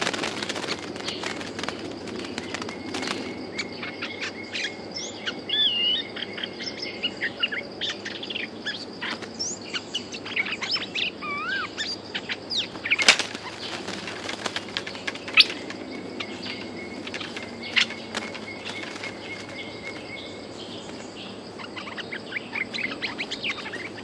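Bulbuls calling in short whistled, gliding notes while a wild bulbul's wings flutter and its feet knock against a hanging bamboo decoy cage, with one sharper knock about halfway through.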